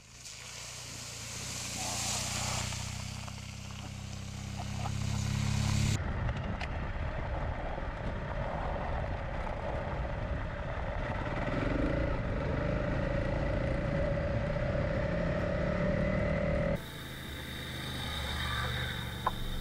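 Adventure motorcycle engines on a dirt track: first a motorcycle approaching, its engine growing louder, then a steady engine drone with wind noise while riding a gravel track, and after a cut near the end a quieter engine with a few clicks.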